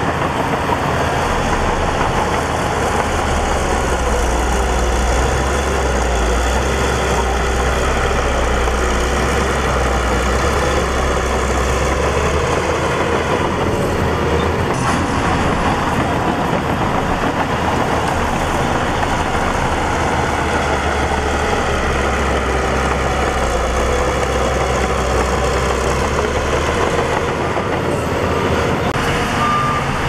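Shantui crawler bulldozer's diesel engine working under load as it pushes soil, a steady heavy-machinery din whose low rumble swells and eases. A reversing alarm starts beeping right at the end.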